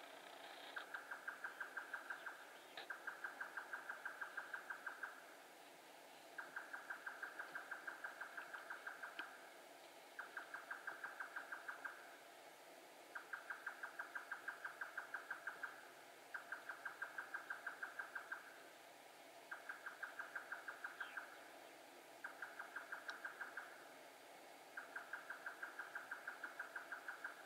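Grey nightjar (Japanese nightjar) singing its rapid, machine-like run of repeated 'kyo-kyo-kyo' notes. The notes come in bouts of about two seconds with short pauses between them, repeated through the whole stretch.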